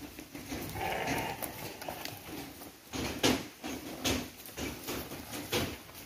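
Amingad sheep bleating as a ram is led on a metal chain. Several sharp clicks and knocks come from the chain and from footsteps, the loudest a little over three seconds in.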